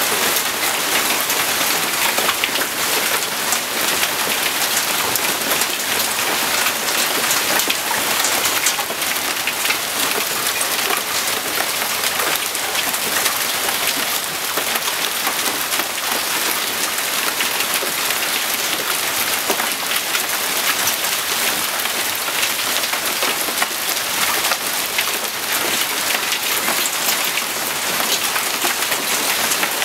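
Hail and heavy rain pelting a patio, tables and a boat: a steady, dense patter of countless small impacts.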